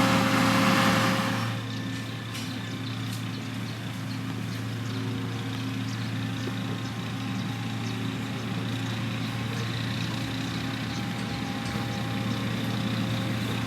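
Diesel engine of heavy road-building machinery running steadily with a low hum. It is louder and hissier for the first second and a half, then settles to even running.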